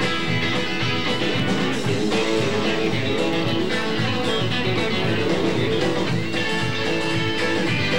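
Live band playing an instrumental passage, acoustic guitars to the fore over electric bass and drums.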